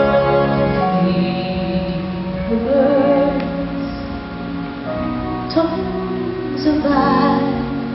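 Slow music: a woman singing, her held notes wavering with vibrato, over sustained accompaniment.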